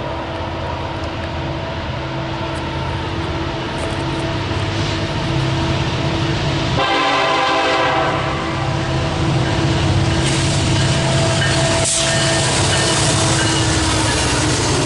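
Freight train running past with a steady low rumble while its diesel locomotive's horn sounds, loudest in a strong blast about seven seconds in. A single sharp clank comes near the end.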